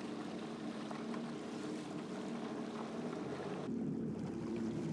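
Calm sea water lapping around a stand-up paddleboard as it glides, with light wind. The sound turns duller about three and a half seconds in.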